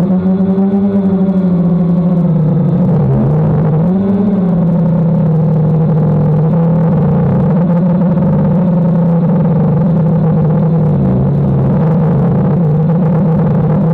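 DJI Phantom quadcopter's motors and propellers humming steadily, the pitch dipping and rising again briefly a few seconds in as the throttle changes.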